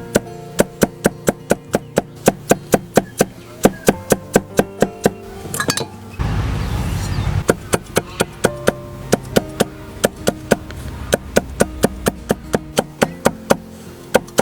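Kitchen knife chopping potatoes on a cutting board in quick, even strokes, about three to four a second, with a brief rush of noise about six seconds in. Background music plays underneath.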